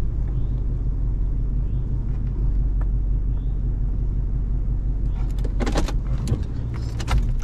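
Pickup truck running and rolling slowly over a dirt track, heard from inside the cab as a steady low engine and road rumble. Near the end, a quick run of sharp clicks and rattles.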